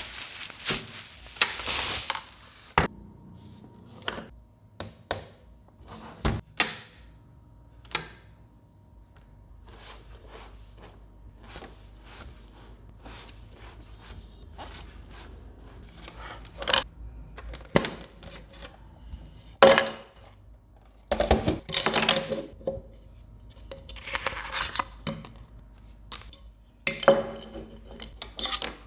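Small hard objects being handled: irregular clicks, taps and light knocks, with short stretches of rubbing and scraping at the start and again near the end.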